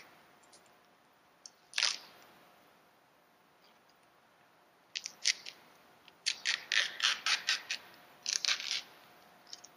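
Masking tape being peeled off a surface by hand in short, crackly rips: one about two seconds in, then quick runs of rips from about five seconds to near the end.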